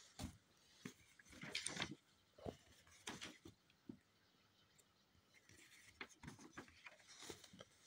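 Faint handling of a paperback picture book: soft paper rustles and small taps as the pages are smoothed and turned.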